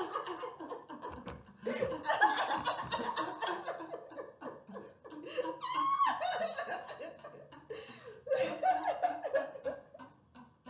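Two people laughing together in bursts, with a short high rising squeal about six seconds in.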